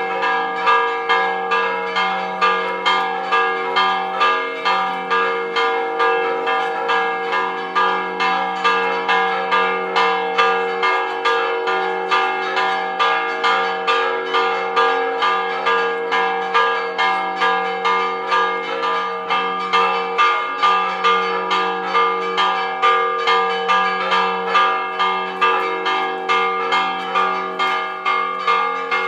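Church tower bells ringing a repique, a fast festive peal: the bells are struck in quick, steady succession, about two loud strokes a second, their tones ringing on over each other.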